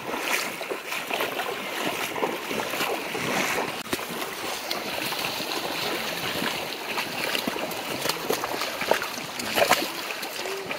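Shallow, rocky jungle river rushing steadily, with many small knocks and splashes from people walking across its stones and water; a few louder splashes near the end.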